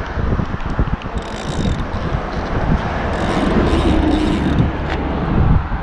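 Road traffic rumbling past with wind on the microphone; one vehicle's sound builds to a peak shortly before the end and then falls away.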